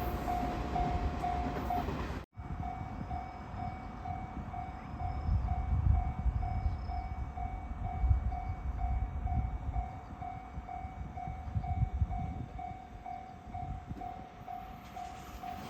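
Japanese level-crossing warning bell ringing steadily, about twice a second, with the low rumble of an electric train running over the crossing. The sound cuts out for an instant about two seconds in.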